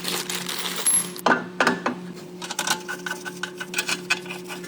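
Light metallic clicks and clinks, which become a fast, even clicking in the second half, over a steady low hum.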